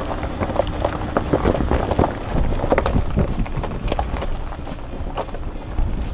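A Toyota RAV4's aired-down tyres rolling slowly over a loose gravel and rock trail: irregular crunches and stone clicks over a steady low rumble from the vehicle, with wind on the microphone.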